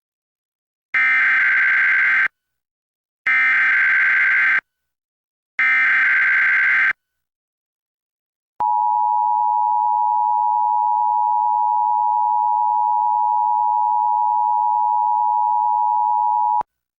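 Emergency Alert System required monthly test: three identical bursts of the SAME digital header, a harsh data screech, each about a second long, then the steady two-tone attention signal held for about eight seconds before it cuts off.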